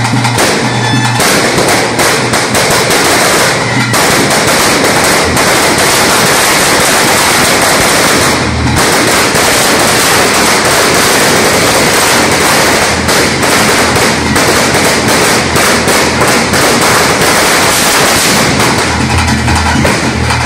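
A long, continuous string of firecrackers going off: a dense crackle of rapid sharp bangs that runs on without a break, with a brief lull about eight seconds in, over temple ritual music.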